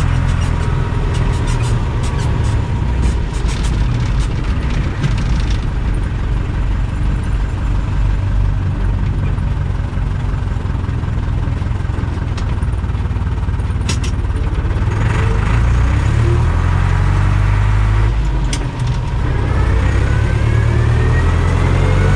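Deutz-Fahr DX 3.60 tractor's air-cooled diesel engine running under way, its revs rising and falling in the second half. There is a sharp click about 14 seconds in.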